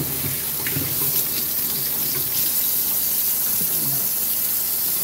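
Kitchen faucet running steadily into a stainless steel sink while hands are rinsed under the stream.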